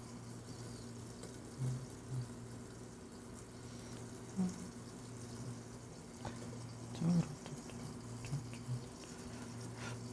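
Pot of chicken stock at a simmer with chicken breasts poaching in it: faint liquid bubbling with a few soft low pops, the strongest about seven seconds in, over a steady low hum.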